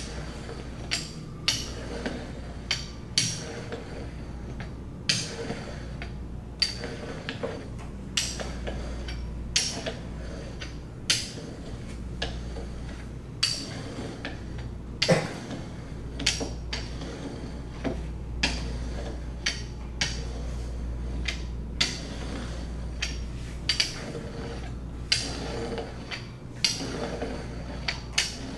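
Metal rolling pin rolling out dough on a wooden table, giving irregular sharp metallic clicks and knocks, about one or two a second, as it presses and shifts. A steady low hum runs underneath.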